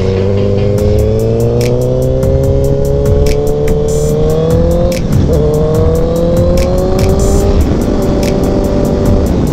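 Sport motorcycle engine accelerating, its pitch climbing steadily, dropping about five seconds in with an upshift, then climbing again. Electronic music with a quick, regular beat plays over it.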